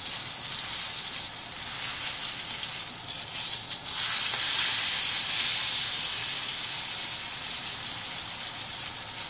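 Rib eye steak sizzling in a smoking-hot pan of butter and olive oil while being turned with metal tongs. The sizzle grows louder about three to four seconds in, as the steak goes back down on the pan, then slowly dies down.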